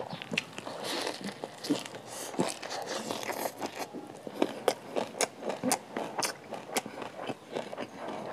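Close-miked eating sounds: a mouthful of fresh leafy herbs and rice being chewed and crunched, with irregular sharp wet clicks and smacks that come thickest in the second half.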